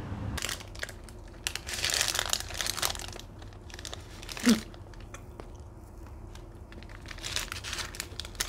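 Food wrapping crinkling and rustling in irregular bursts as a takeaway snack is unwrapped by hand, with a short voice sound about four and a half seconds in.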